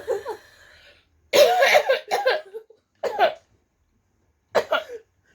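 A person burping loudly about a second in, a long burp from cola gulped down, followed by two shorter throat sounds.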